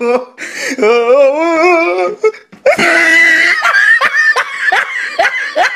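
Laughter: a long, wavering high-pitched laugh, then a run of quick ha-ha bursts about four a second.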